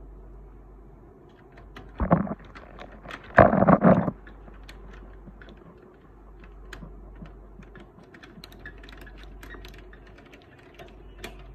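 Clicks, taps and rattles of plastic printer parts being handled and fitted into a laser printer's chassis, with two louder clusters of knocking about two and three and a half seconds in.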